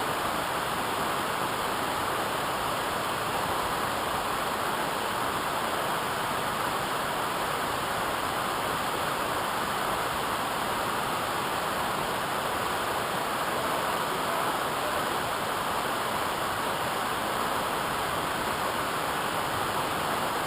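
Steady rushing of falling water from a waterfall, an even roar that stays constant throughout.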